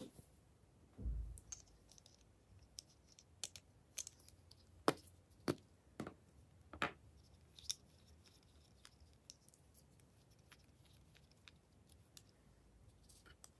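Small plastic lip balm tubes handled close to the microphone, giving scattered sharp clicks and taps, with a soft low thump about a second in.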